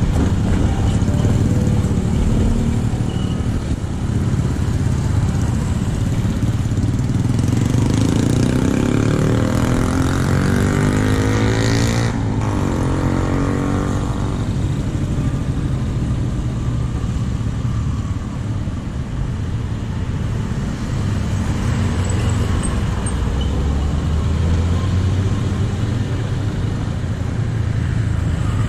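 Steady road traffic, mostly motorcycles and cars passing at a level crossing. One vehicle passes close and louder around the middle, swelling and then fading.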